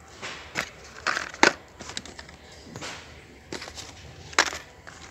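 Small firecracker packets being picked up and handled on a store shelf: a series of irregular short rustles and knocks, loudest about a second and a half in and again a little after four seconds.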